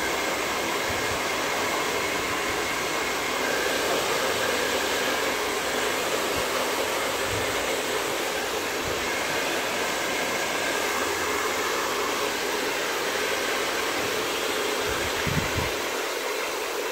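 Hand-held hair dryer running steadily on a dog's wet fur: a continuous rush of blown air with a faint motor whine.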